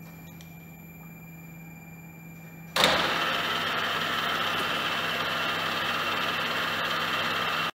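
Deckel FP 3 NC milling machine: a low steady hum, then about three seconds in a much louder, steady machine running noise starts suddenly, as the machine's drive is switched on. It cuts off abruptly just before the end.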